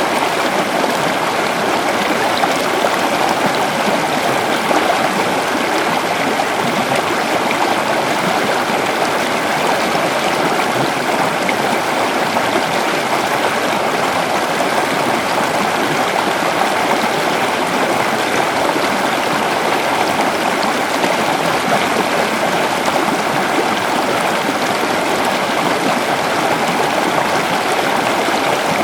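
Waterfall and flowing water: a steady, even rush of falling and running water.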